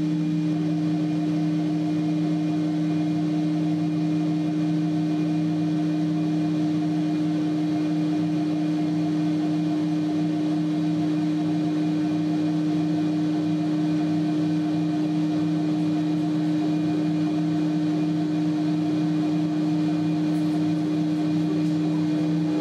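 CNC wood router's spindle running at constant speed with a steady hum, its 8 mm ball-nose cutter milling an airfoil shape into MDF.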